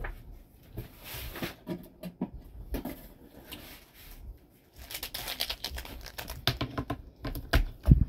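Irregular clicking, rustling and light knocking of small objects being handled and moved about while tidying a room, busier in the second half, with one louder knock near the end.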